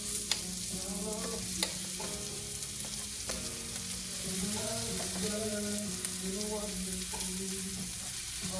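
Cooked rice sizzling in a hot pan with sautéed bell peppers, a steady frying hiss, while a utensil stirs it, clicking and scraping against the pan a few times.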